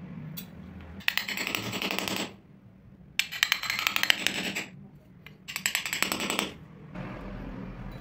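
Metal spoons crunching and grating in gritty molding sand as they are pressed in and worked out to shape a mold, in three short bursts of rapid scratchy clicking.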